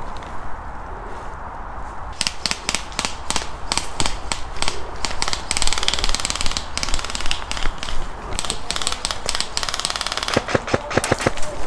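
Airsoft guns firing: scattered sharp cracks, with two bursts of rapid full-auto fire lasting about a second each, one near the middle and one near the end.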